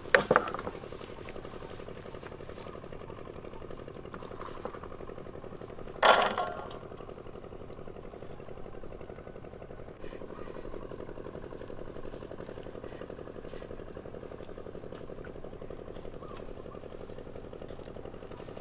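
A pot bubbling steadily over the heat, with insects chirping at a high pitch on and off through the first half. A sharp knock sounds about six seconds in.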